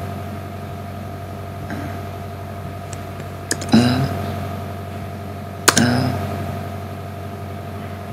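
Steady electrical hum of room tone, with two sharp clicks about two seconds apart, at the middle and near the end, each followed by a brief low murmur.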